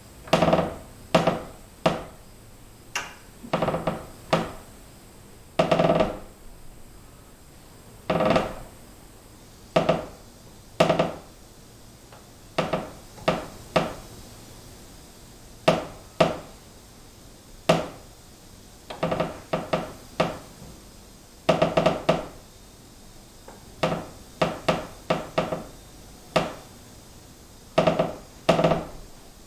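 A wooden beam creaking at a distance: a long series of short, irregular creaks, some coming in quick clusters.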